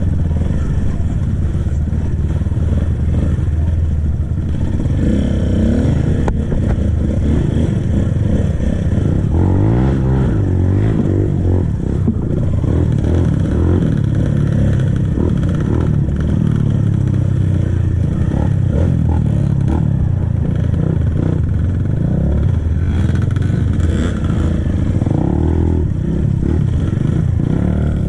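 Kawasaki KLX trail bike's single-cylinder four-stroke engine through its stock exhaust, revving up and down repeatedly while riding off-road.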